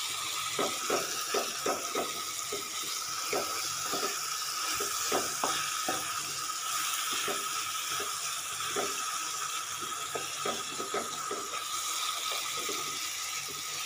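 Tomatoes, onions and capsicum sizzling in oil in a nonstick pan while a spatula stirs them, with frequent short scrapes and taps of the spatula against the pan.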